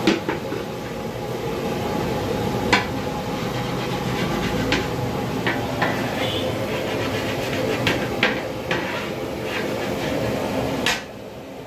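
Long metal ladle knocking and scraping against the side of a large aluminium biryani pot as the steamed rice is turned: sharp clanks every second or so, irregular, over a steady background hum.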